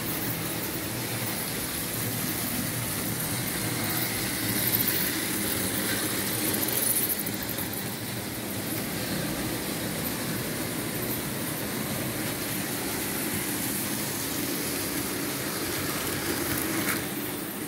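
Märklin H0 model trains running on the layout's metal track: a steady whirring rumble of wheels and small electric motors, briefly louder about five and seven seconds in.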